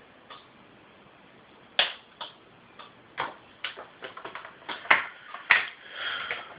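Samsung TV clicking over and over as it tries and fails to turn on. About a dozen short, sharp clicks at uneven intervals, coming faster in the middle.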